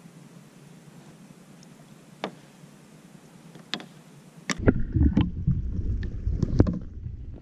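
Quiet open-water ambience with a few light ticks and taps. About halfway through, the microphone goes under water: the sound turns suddenly muffled, with loud low sloshing and rumbling of water against the submerged camera housing.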